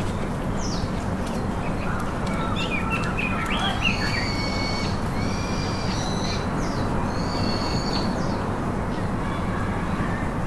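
Forest birds calling: a cluster of quick chirps about three to four seconds in, then a run of short, repeated whistled notes, over a steady low hum.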